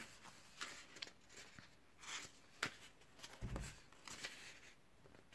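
Faint rustling of paperback book pages being handled and turned, in a string of short soft swishes, with a couple of sharp clicks and a low bump of the book being moved about midway.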